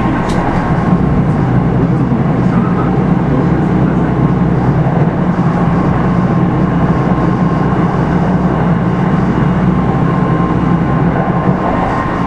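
Kintetsu 5211 series electric train heard from its motor car Mo 5261 while running on the line: a steady hum of motor and wheel-on-rail noise with a faint high tone above it.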